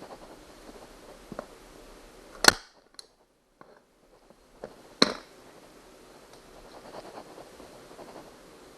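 A manual spring-powered staple gun fires twice, about two and a half seconds apart, each shot a sharp snap, with handling and rustling of the vinyl and tool between shots.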